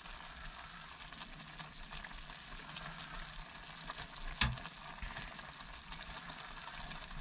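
Beef and tendon braising in sauce, sizzling and bubbling in a pot with a steady hiss. A single sharp click about four and a half seconds in.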